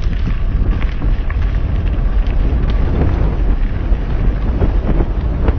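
Wind buffeting a GoPro action camera's microphone on a moving mountain bike, with steady tyre rumble and scattered small crunches and clicks from the bike rolling over a dirt trail.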